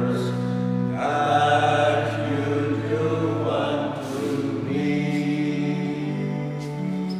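Men's voices singing a church hymn over a sustained instrumental accompaniment of long held bass notes. The singing stops about four seconds in, and the accompaniment carries on with held chords.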